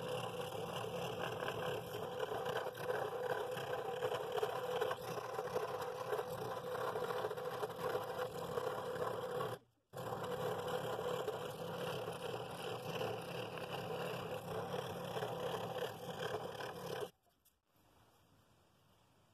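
Scroll saw running and cutting rings out of a pine board: a steady mechanical buzz with the blade rasping through the wood. It drops out for a moment about halfway and stops abruptly near the end.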